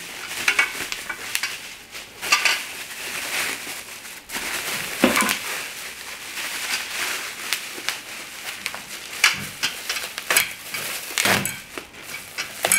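Plastic bubble wrap and packaging bags rustling and crinkling as they are pulled open and handled, with irregular crackles and several louder crinkles.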